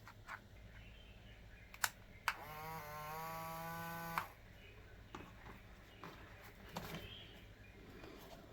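A switch clicks and a small electric motor runs with a steady whining hum for about two seconds, then cuts off with another click. Light clicks and taps follow.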